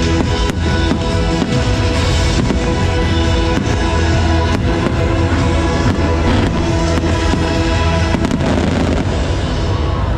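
Loud show music with a heavy bass, played over a sound system, with firework shells bursting in sharp bangs over it many times.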